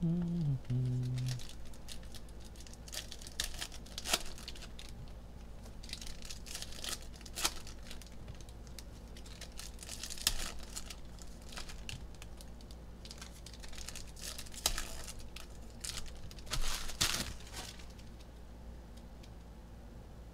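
Foil trading-card pack wrappers of 2020 Panini Mosaic football packs crinkling and tearing as they are opened by hand, in short irregular crackles. The crackling thins out over the last couple of seconds.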